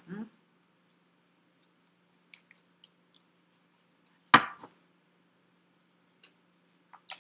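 Tarot cards being handled and shuffled: scattered faint card clicks and one sharp knock a little over four seconds in, over a steady low hum.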